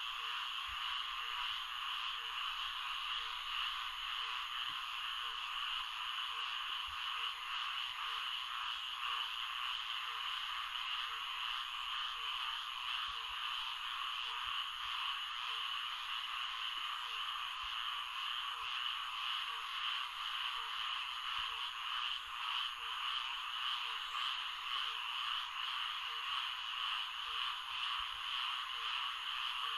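Florida swamp ambience: a dense, steady chorus of frogs, with one low call repeating about once a second beneath it.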